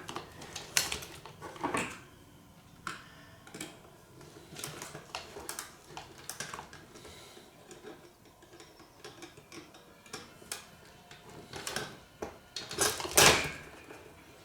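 Irregular clicking and light metallic clatter of hand tools on a power supply's terminal posts and chassis, with a few louder knocks about a second in and near the end, as the posts are worked on to tighten them.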